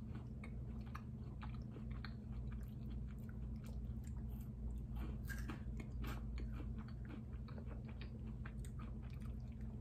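Close-up chewing and biting of a mint dark chocolate KitKat, with many small crackles and mouth clicks as the wafer is eaten, over a steady low hum.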